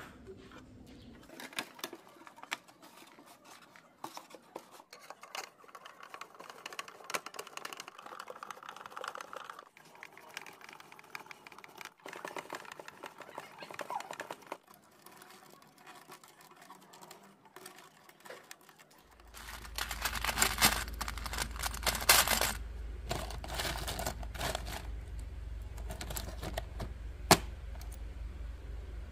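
Irregular light clicking and clatter of small objects being handled. About two-thirds of the way through, a steady low hum comes in and the clicks grow louder, with one sharp click near the end.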